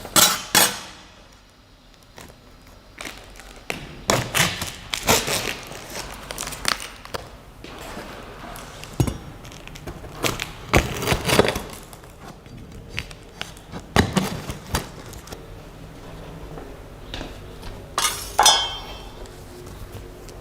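Packaging and parts of a boxed 3D printer kit being handled during unboxing: a string of irregular knocks, thuds and clinks, with rustling between them.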